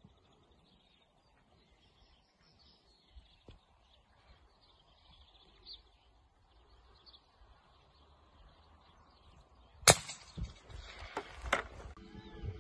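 Faint bird chirps over a quiet rural background, then near the end one sharp, loud bang followed by two smaller knocks and a brief rush of noise.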